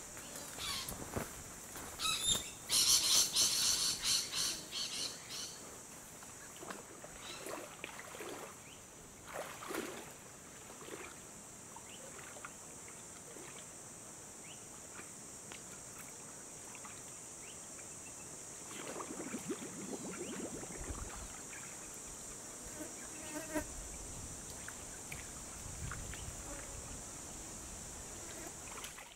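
A steady high-pitched insect drone in the bush, with scattered bird calls. A loud rapid run of calls comes about three seconds in.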